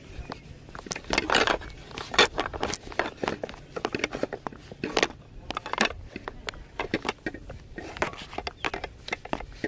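Footsteps on a paved sidewalk mixed with rustling, rubbing and knocking from a hand-held camera being carried while walking: an irregular run of clicks and bumps.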